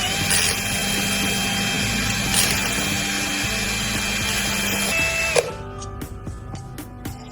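A power tool running steadily with a dense grinding noise and a whine. It cuts off abruptly about five seconds in, leaving background music with a light beat.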